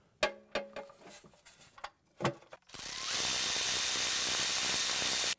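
A few sharp metallic clinks of tools and parts, then about two and a half seconds of loud, steady hissing that stops abruptly, during work on a truck's automatic transmission oil pan.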